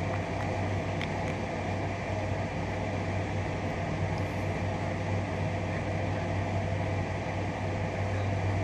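A steady low mechanical hum over an even background noise.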